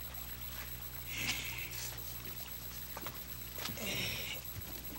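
Insects chirping at night in short high trills, two of them, about a second in and about four seconds in, over a low steady hum.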